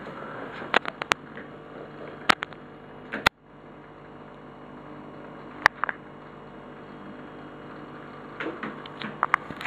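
Steady hum and hiss of aquarium equipment, the air pump running a sponge filter, broken by sharp clicks: a few in the first three seconds, two near the middle and a cluster near the end. The sound drops out for a moment about a third of the way in.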